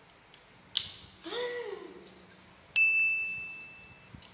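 Edited-in subscribe-button sound effect: a sharp click, a short sweeping sound that rises and falls in pitch, then a single clear bell-like ding that rings out and fades over about a second.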